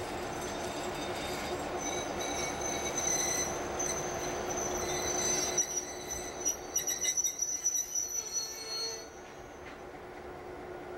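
Steel wheels of a loaded freight train squealing in several high, wavering tones with some clanks as the EMD GP9 locomotives creep forward and ease toward a stop; the squeal dies away near the end, leaving the low rumble of the diesels.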